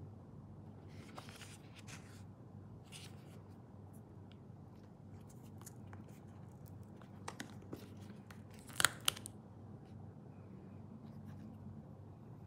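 Packaging being handled and unwrapped, with faint rustling and scraping and a run of sharp clicks about two-thirds through, the loudest two close together, over a steady low hum.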